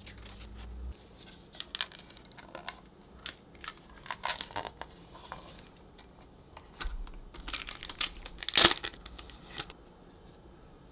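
Hands handling a spiral-bound paper desk calendar and a stiff red cardboard box: a string of rustles and short clicks and taps as the card is slid and set into place, the loudest tap about two-thirds of the way through.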